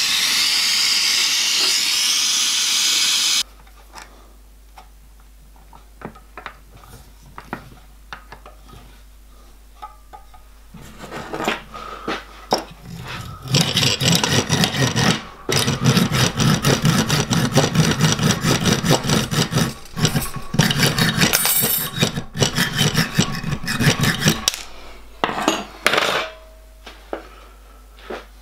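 Gas torch flame hissing steadily during silver soldering, cutting off suddenly after about three seconds. Then come scattered light clicks and taps, and from about eleven seconds in a long run of quick rasping strokes of a hand tool working a small metal part clamped in a bench vise, which dies away near the end.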